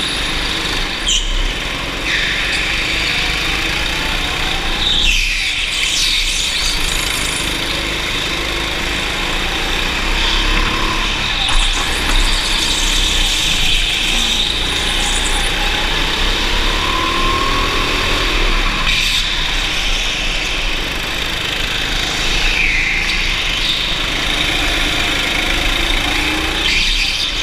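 Go-kart engine running hard, its pitch rising and falling as the kart brakes and accelerates through corners, with tyres squealing at times.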